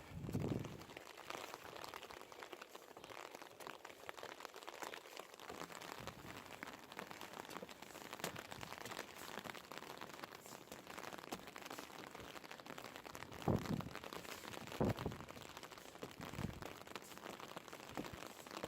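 Rain falling in a steady even patter, with a few short low thumps on the microphone, one just after the start and two close together in the last third.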